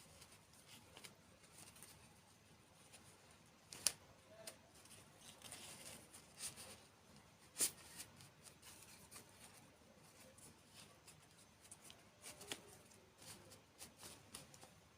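Faint, scattered clicks and crinkly handling noises of small objects, with two sharper clicks about four and seven and a half seconds in.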